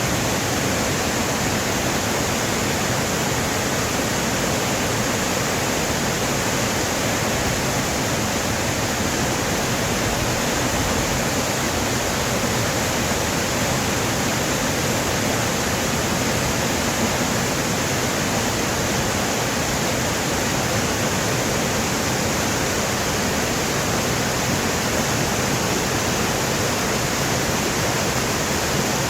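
Mountain valley stream rushing over its bed, a loud, steady, unbroken rush of water.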